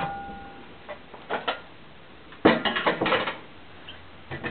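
Kitchenware clattering: a ringing clink fading out early, then several bursts of clinks and knocks, the loudest cluster about halfway through.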